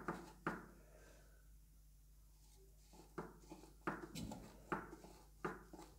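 Soft taps and scrapes of gloved fingers pressing crumbly bath bomb mixture into a metal mould tray. There is one tap near the start, then after a pause about five more, roughly three-quarters of a second apart.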